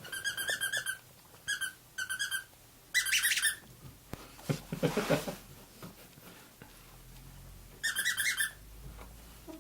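Bird chirping in bursts of quick, high chirps, five times with gaps between, and a brief lower sound about halfway through.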